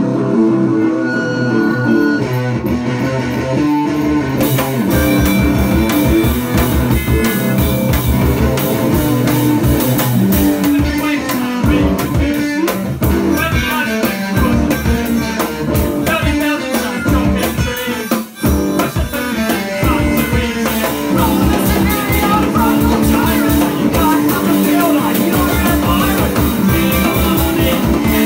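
Live punk/indie rock band playing loudly: guitars, then a driving drum kit with cymbals coming in about four seconds in. The music briefly drops out for a moment about 18 seconds in before carrying on.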